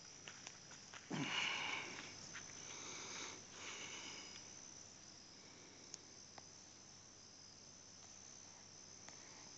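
Insects chirring steadily in the surrounding woods. A brief louder noise about a second in, and a few faint clicks.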